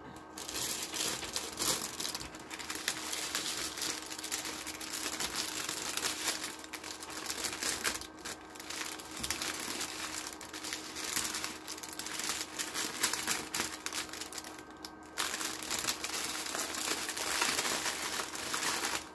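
Plastic packaging crinkling continuously as it is handled and stuffed back into a bag, with short lulls a little before halfway and again about three-quarters through.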